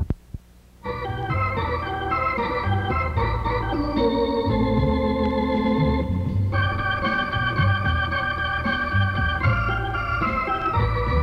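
Organ music starts about a second in: held chords over a moving bass line, after a couple of sharp clicks.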